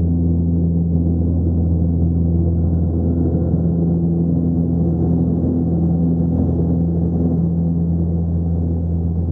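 Low, steady drone of a film soundtrack, several held low tones that do not change.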